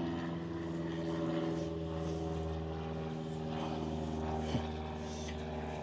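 An engine running steadily in the background, an even drone that holds at one pitch.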